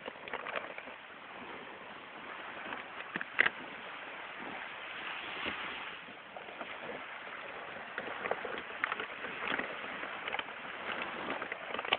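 Small waves washing up on a sandy beach, with wind on the microphone, scattered clicks and one sharp knock about three and a half seconds in.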